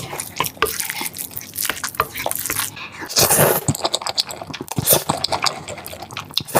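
Close-up eating sounds: irregular wet clicks and crunches of chewing and biting, with a louder noisy burst about three seconds in.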